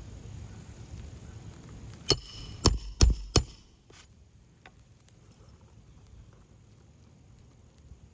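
Four sharp hammer blows in quick succession, nailing a new 3-tab asphalt shingle down with fresh roofing nails, followed by a couple of faint taps.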